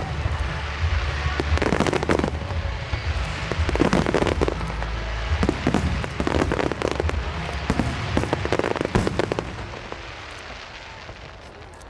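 Fireworks display going off: a rapid barrage of bangs and crackles that dies away about nine and a half seconds in.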